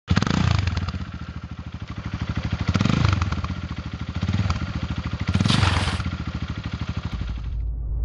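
Small motorcycle engine running with a rapid putter, revved up and eased off several times. Near the end the engine sound stops and a deep low rumble takes over.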